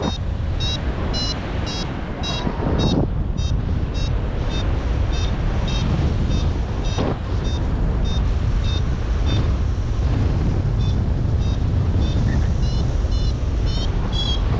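Wind buffeting the microphone in flight, with a paragliding variometer beeping in short high pips about twice a second. The beeping is the sign that the glider is climbing in lift.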